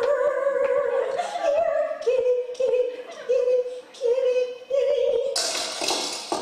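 A woman's voice singing: a long held note, then about six short notes repeated on the same pitch, followed near the end by a brief burst of hissing noise.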